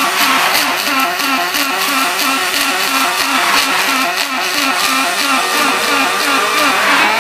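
Robotic MIG welding arc on aluminum: a steady crackling buzz with a rhythmic pulse about three times a second.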